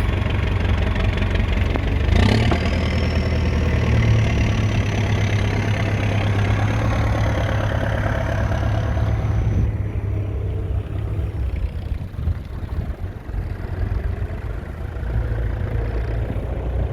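1981 Leyland 802 tractor's 3.8-litre four-cylinder diesel engine running steadily. A sharp click comes about two seconds in, a faint high whine runs until about ten seconds in, and after that the engine sound drops in level and turns less even.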